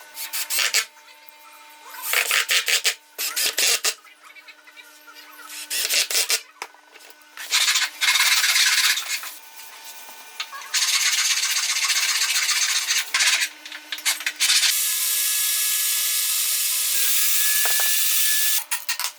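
Workshop tool work: several short bursts of quick rasping, rubbing strokes, then two longer steady stretches of the same kind of noise, the last with a faint high whine running through it.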